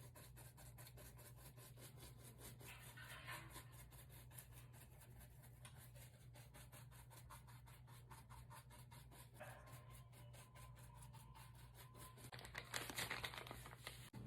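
Near silence: faint scratching and rubbing over a steady low hum, with a few brief louder rustles, the last and loudest near the end.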